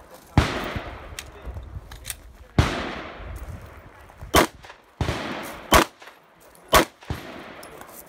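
A string of about six 9mm pistol shots fired one at a time, unevenly spaced a second or two apart. Each is a sharp crack, some with an echoing tail.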